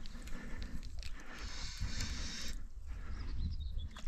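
A spinning reel being wound while a fish is played on a sharply bent feeder rod, with a steady higher whirring from about a second and a half to two and a half seconds in. Wind rumbles on the microphone throughout.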